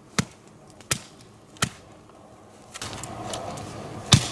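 Three sharp knocks, about three-quarters of a second apart. Then a steady hissing noise starts, with one loud knock near the end.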